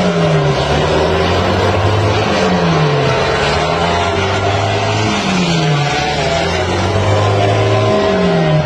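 MotoGP race bike engines on the circuit, with four engine notes falling in pitch, each a couple of seconds apart, over a steady low drone and continuous noise.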